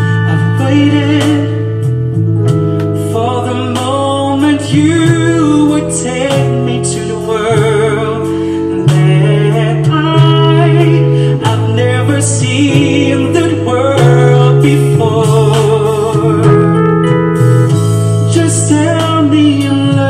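A man singing a love song over a backing track, holding long notes with vibrato.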